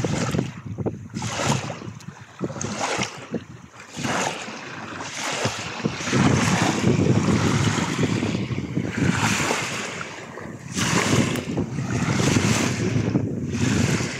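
Small waves washing onto a pebbly shore in hissing surges every second or two, with wind rumbling on the microphone, heavier from about halfway through.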